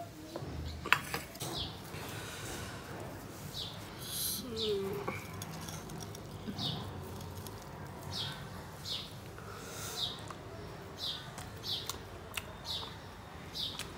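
A small bird chirping over and over, a short falling chirp repeated about once or twice a second.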